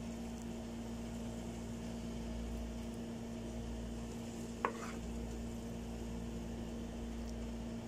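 A wooden spatula stirring and scooping fried noodles in a hot non-stick pan, with a faint sizzle and a steady low hum. There is one sharp tap a little past halfway.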